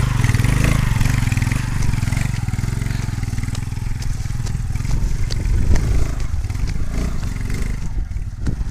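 Motorcycle engine running at low speed on a rough, rocky dirt track, with scattered clicks of stones under the tyres.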